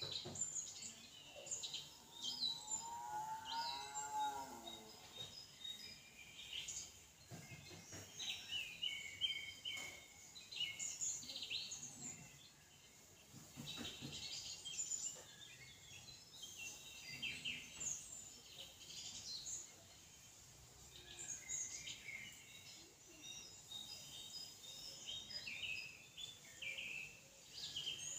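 Small birds chirping and calling, many short high notes overlapping one another, with one lower, wavering call about three seconds in.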